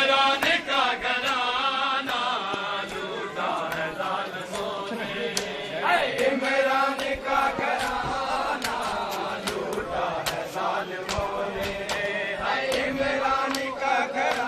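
Men's voices chanting a mourning lament, crossed by many sharp, irregular slaps of hands on bare chests (matam).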